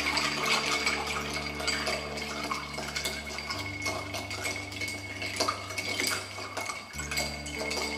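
Bar spoon stirring ice cubes in a cut-glass mixing glass: a quick, continuous run of small glassy clinks and rattles as the cocktail is stirred to chill it.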